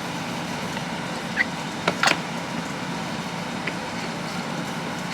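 Steady background hum with a few short clicks of a plastic toy press being worked, about two seconds in.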